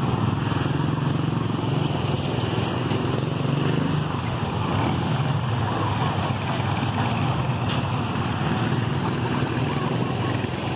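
An engine running steadily, a low even hum over a wash of outdoor noise.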